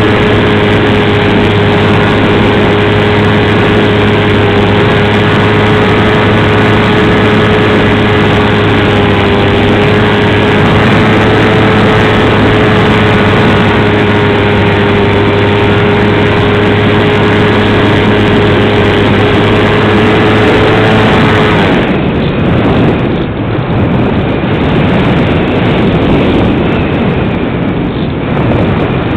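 Onboard sound of a radio-controlled model aircraft's motor and propeller running at a steady, even pitch, close to the microphone. About three-quarters of the way through the motor cuts off, and only the uneven rush of wind past the aircraft remains.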